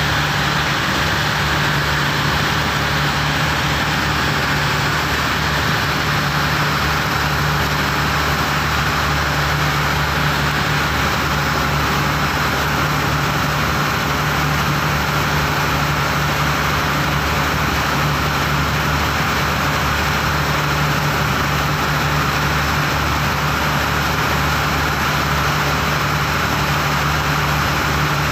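A boat's engine running at a steady cruising drone, under the rush of water from the hull's wake.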